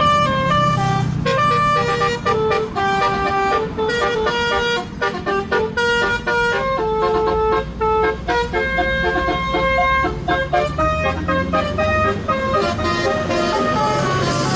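Tour bus 'telolet' musical horn playing a quick melody of short stepped notes, over the rumble of the bus engine.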